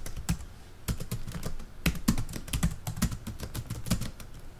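Computer keyboard typing: irregular key clicks, about two or three a second.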